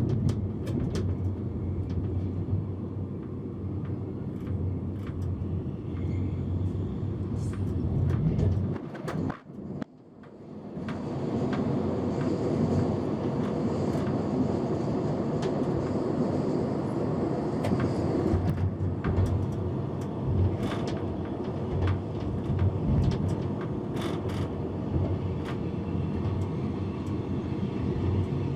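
Rhaetian Railway train running along the track: a steady rumble with scattered sharp clicks from the wheels on the rails. The sound dips briefly about a third of the way in, then carries on.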